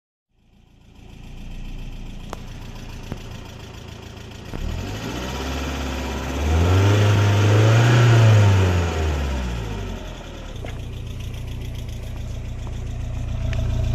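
BMW E36 318is's M42 1.8-litre four-cylinder engine idling, revved once partway through and falling back to idle. The owner says the engine has started to tick suddenly, and he does not know why.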